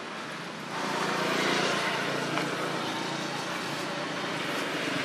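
Steady hum of a motor vehicle engine with traffic noise, swelling louder about a second in.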